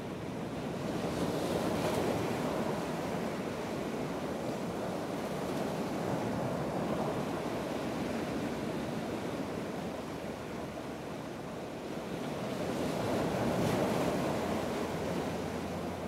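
Atlantic surf breaking and churning over rocky granite ledges, a continuous wash of white water. It swells louder twice, about two seconds in and again near the end, as bigger waves surge in over the rocks.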